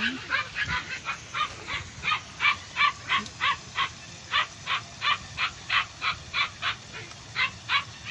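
An animal calling over and over: a rapid, even series of short, high-pitched calls, about three a second, that stops shortly before the end.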